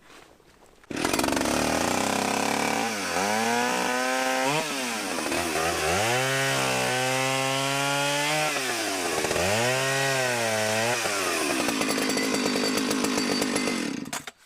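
Gas chainsaw starts abruptly about a second in and runs loudly, its engine pitch dropping and rising again several times as it is revved, then stops just before the end.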